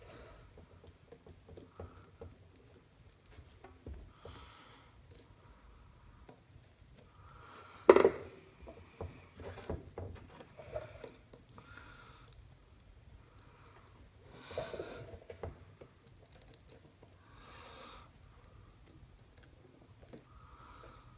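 Small clicks, rustles and taps of copper wire ends being twisted and pushed through an electric motor's terminal, with one sharp clack about eight seconds in.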